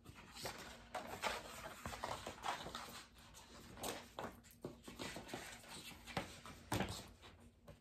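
A hardcover picture book being handled and its pages turned: irregular paper rustling with a few sharper taps and knocks.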